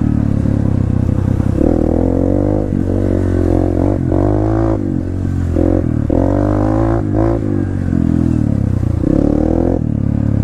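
Dirt bike engine running under load on a trail, its pitch climbing and dropping back several times as the throttle is opened and closed.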